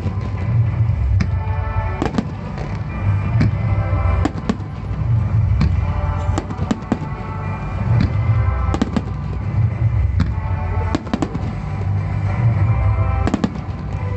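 Aerial firework shells bursting in quick succession, a sharp crack and deep boom one or two times a second, with several shells going off together.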